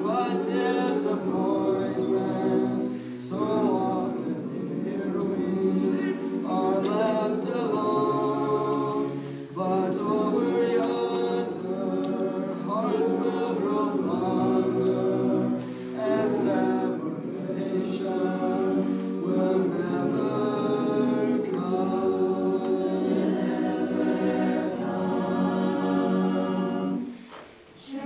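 Mixed youth choir of male and female voices singing a hymn a cappella in harmony, with brief breaks between phrases and a short pause near the end.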